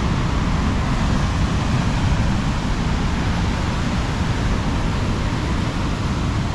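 Wind buffeting the microphone over the steady rush of rough surf breaking along the shore.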